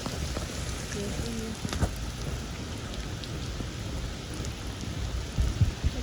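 Rain falling steadily, a constant even hiss, with a few loud low thumps about five seconds in.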